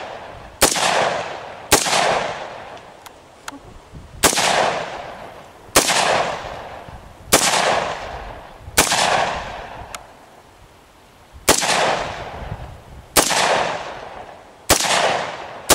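A firearm fired in a string of about nine single shots at an unhurried pace, one every one to two and a half seconds, each crack trailing off in a long echo.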